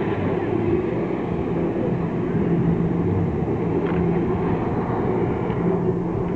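Personal watercraft engine running steadily at high revs to drive a flyboard's water jets, a constant drone mixed with the rush of jetting spray.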